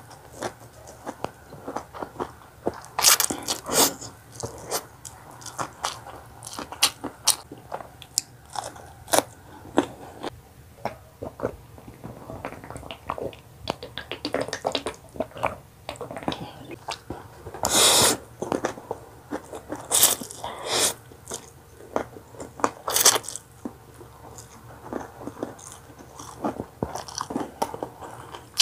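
Close-miked eating of pancit canton (stir-fried instant noodles): wet chewing, lip smacks and mouth clicks in an uneven run, with a few louder slurps or gulps scattered through.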